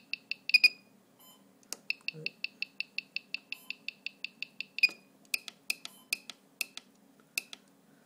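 Electronic beeper of a homemade FPV RSSI switch giving rapid short high-pitched beeps, about five or six a second, while its button is held down to enter the menu. It breaks off briefly about a second in and resumes. After one louder beep about five seconds in, slower, irregular single beeps with clicks follow as the menu is scrolled.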